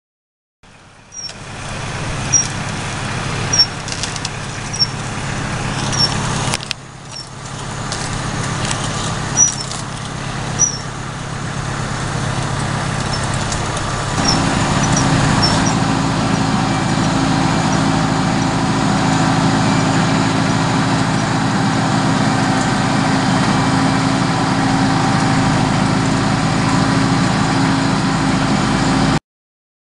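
Farm tractor engine running steadily as it pulls a wide fertilizer spreader across the ground, with a short high chirp repeating about once a second through the first half. About halfway through the engine note shifts and gets louder.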